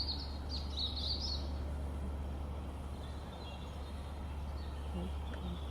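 Song thrush singing at dawn, repeating a short, high phrase: two loud phrases in the first second and a half, then fainter song.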